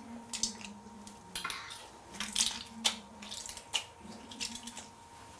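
Kitchen knife and utensils clicking and scraping against a cutting board while fruit is cut up, in irregular short strokes.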